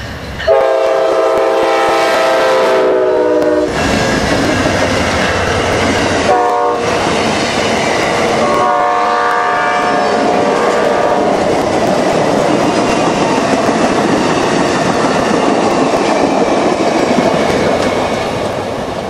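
Amtrak passenger train passing at speed behind GE Genesis diesel locomotives: the locomotive air horn sounds a chord of several notes in a long blast, a short one and another long one, then the passenger cars clatter and rumble steadily over the rails, fading near the end.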